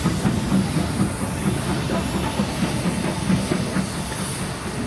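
BR Standard Class 4MT tank locomotive 80097 moving slowly along the platform line, steam hissing from around its cylinders over a steady clatter and rumble of the engine and wheels.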